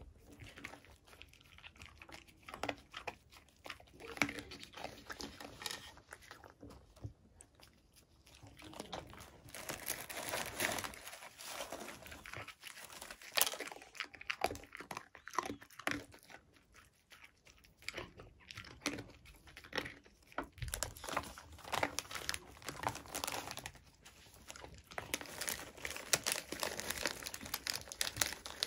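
A dog crunching and chewing small hard baked cookie bites eaten from a gloved hand, with a foil-lined plastic snack bag crinkling as it is handled.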